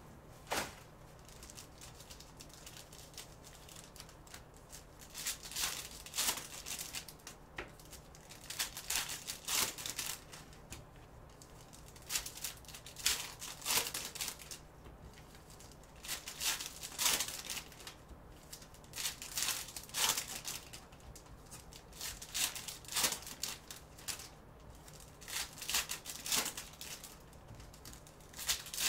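Shiny foil trading-card pack wrappers being crinkled and torn open and the cards inside handled, in irregular short bursts of rustling.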